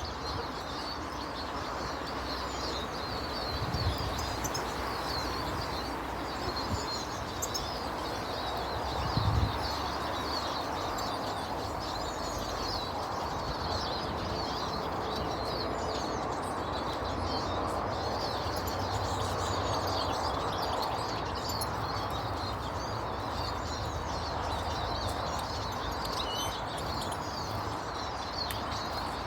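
Many small garden birds chirping and twittering continuously over a steady background hiss, with two low thumps about four and nine seconds in.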